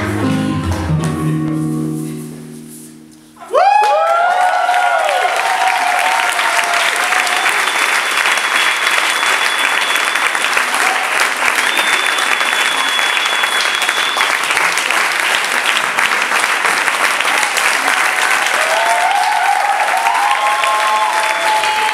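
Dance music with a deep bass line fades out over about three seconds, then an audience breaks into loud applause with cheers and calls on top that lasts to the end.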